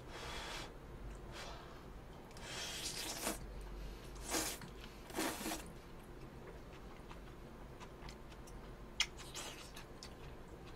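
A person eating spaghetti: several short noisy slurps and chewing as noodles are sucked in, followed by a few light clicks near the end.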